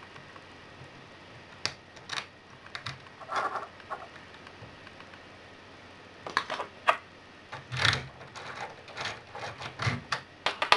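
Small metal clicks, scrapes and rattles as a brass euro profile cylinder lock and its picking tools are handled and set in a vise. Near the end a key is slid into the keyway, and the clicking comes in quick clusters.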